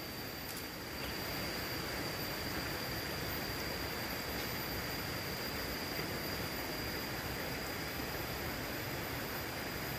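Steady outdoor forest ambience: an even hiss with a constant high-pitched insect tone running through it.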